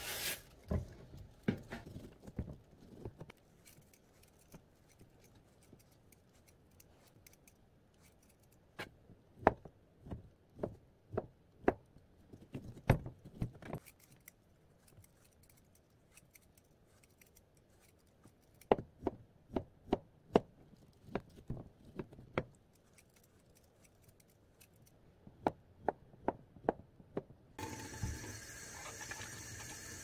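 Kitchen knife clicking and knocking against a plastic cutting board in irregular clusters of sharp taps while kiwis are peeled and cut, with a plastic bag rustling at the very start. A steady hiss comes in near the end.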